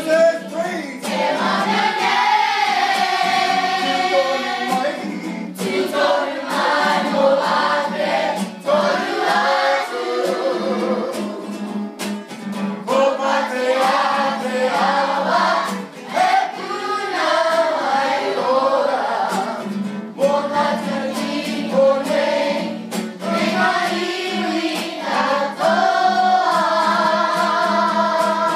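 A group of voices singing a school song in te reo Māori together, with a steady low note sounding beneath the singing.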